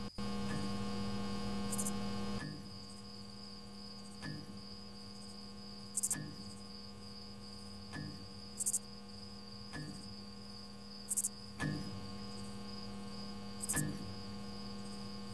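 Electric hum of a streetlamp switching on, louder for about the first two seconds and then steady. Under it are soft clicks about every two seconds and crickets chirping in short bursts.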